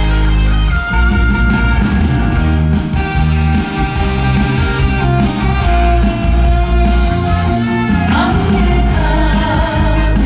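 Live music: a male singer performing a song over a band backing with guitar and a steady beat, his voice sliding on a held note near the end.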